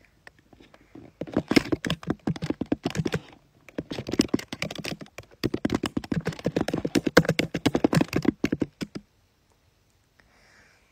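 Fast runs of small taps and clicks, fingers typing on a phone touchscreen, in two spells: one of about two seconds starting a second in, then a longer one that stops suddenly near nine seconds.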